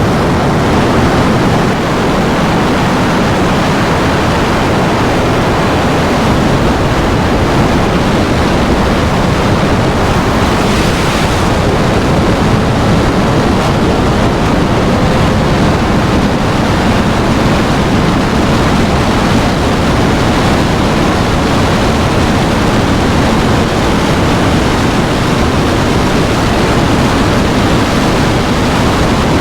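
Motorcycle riding at speed: a steady rush of wind over the rider's microphone, with the engine running faintly underneath.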